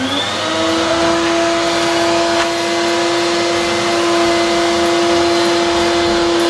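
Vacuum cleaner motor spinning up with a rising whine, then running steadily at full speed with a constant hum over the rush of air.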